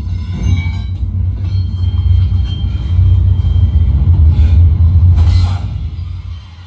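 Bass-heavy music played loud through a GOVO GoSurround 900 2.1-channel soundbar and its 6.5-inch wired subwoofer, set to volume 20, with the deep bass dominating. The music drops away briefly near the end.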